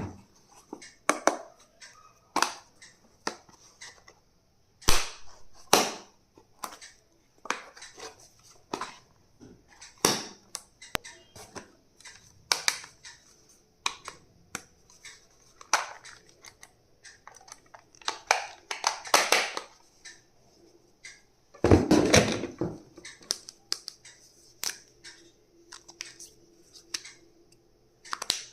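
Hands handling plastic stationery and its packaging: irregular clicks, taps and knocks about every second, with a few short stretches of rustling.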